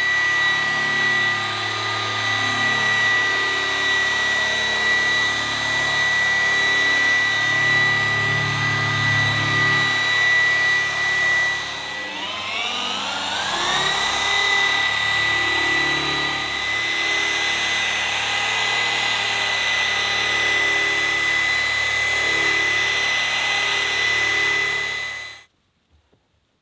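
Rupes LHR15 random-orbital polisher running on car paint with a foam finishing pad, a steady high motor whine. About halfway through, its pitch sags and climbs back up. It cuts off suddenly near the end.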